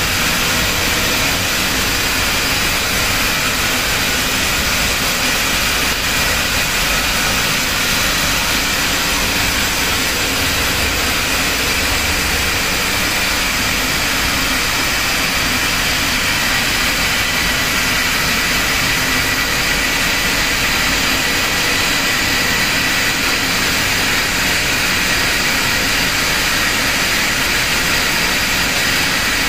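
Wet wire drawing machine with rolling cassette dies running at steady speed: a continuous mechanical hiss and whir with a few faint steady high-pitched tones.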